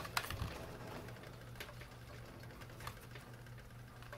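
Faint, scattered clicks and light knocks of a chainsaw's plastic housing being handled and turned on a workbench, over a steady low hum.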